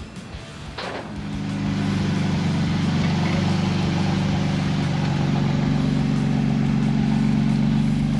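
A car engine, the BMW E46 325i's inline-six, starting about a second in and settling into a steady idle.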